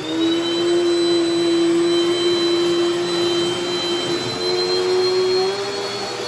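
Dirt Devil Dynamite Plus upright vacuum cleaner running at full power with a steady motor whine, just switched on and spinning up at the start. It is sucking up scraps of paper, which clog its hose. Its pitch shifts slightly higher about five and a half seconds in.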